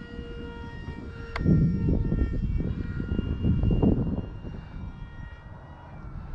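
Twin five-bladed electric ducted fans of a Dynam A-10 RC jet whining steadily in flight, a sound like a vacuum cleaner. A click comes about a second and a half in, followed by a couple of seconds of loud, low wind buffeting on the microphone.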